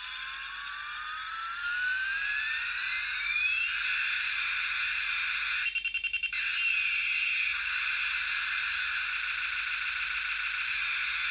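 Aeroplane keychain toy playing its built-in aircraft engine sound effect through its tiny speaker: a whine rising in pitch over the first three seconds or so, then a steady high whine over hiss, with no bass. About six seconds in it stutters briefly in a quick run of pulses.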